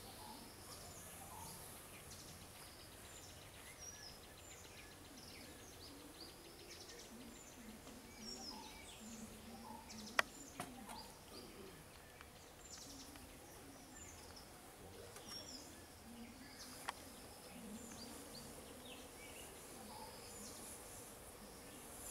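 Outdoor ambience of many short bird chirps and calls over a faint, steady, high insect hiss. Two sharp clicks stand out, one about halfway through and another about three-quarters of the way through.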